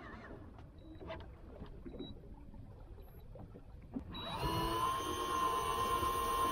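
Low hiss with a few light knocks. About four seconds in, a small electric motor starts with a brief rising whine, then runs steadily.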